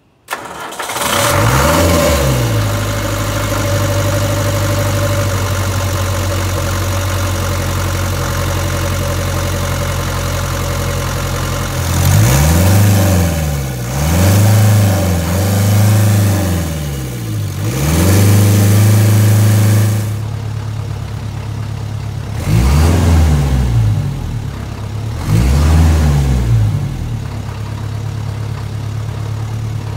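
Land Rover 2.25-litre four-cylinder diesel starting up and running, its CAV injection pump turned up to full fuel. It idles steadily, is revved up and dropped back several times, held higher for a couple of seconds, then idles and is revved again in short blips.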